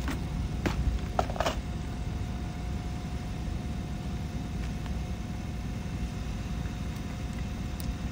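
Steady low rumble of a vehicle engine idling close by, with a faint steady tone held above it. A few short clicks and knocks come in the first second and a half.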